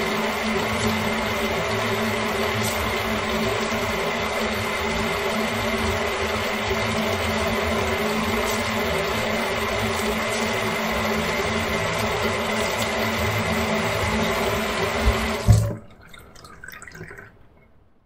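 Tap water running steadily into a kitchen sink. About fifteen and a half seconds in, the flow stops abruptly with a loud thump, leaving a faint tail that fades out near the end.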